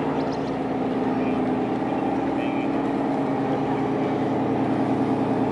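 Small fishing boat's engine idling, a loud steady drone.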